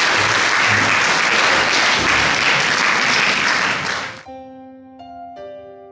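Audience applauding, cut off abruptly about four seconds in; a few soft, sustained notes of closing music follow, with new notes coming in twice.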